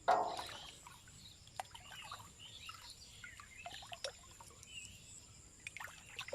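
Quiet outdoor marsh ambience: scattered short bird chirps and a steady high insect drone, with a few faint clicks.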